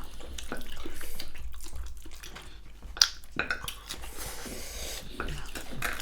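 Close-miked eating sounds: wet chewing and mouth clicks as rice is eaten by hand, with a sharp click about three seconds in.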